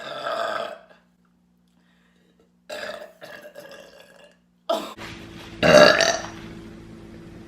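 Three loud belches in a row, each about a second or two long, the loudest about two-thirds of the way through.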